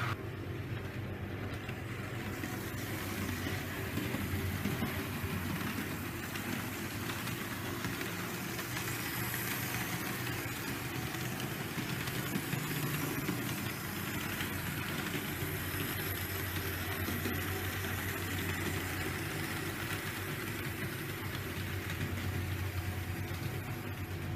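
HO-scale model trains running on a layout: a steady low hum from their motors, with the wheels rumbling along the track.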